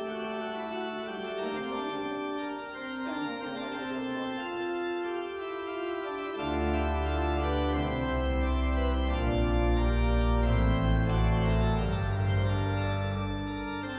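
Organ music: slow, held chords. Deep bass notes come in about halfway through, and the music grows louder.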